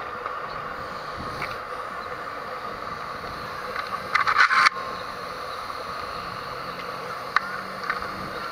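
Steady background noise with a short cluster of sharp knocks and clatter about four seconds in, and a single click near the end.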